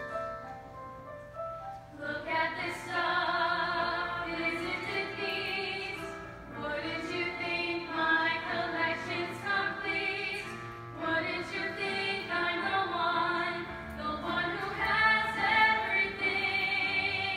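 A group of performers singing a song with piano accompaniment; the piano plays alone at first and the voices come in about two seconds in.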